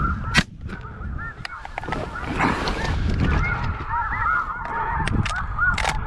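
Snow geese calling, many short yelping honks overlapping, with a single loud shotgun shot about half a second in.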